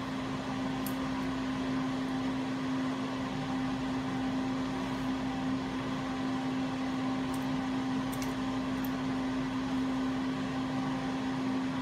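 Steady hum of a running machine: one constant low tone over an even hiss, with a few faint high ticks.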